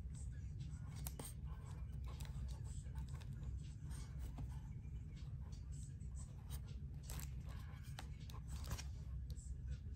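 Fingers pressing the side buttons of a resin-cased Casio G-Shock DW-5900 digital watch and handling it: scattered small clicks and rustles over a steady low hum.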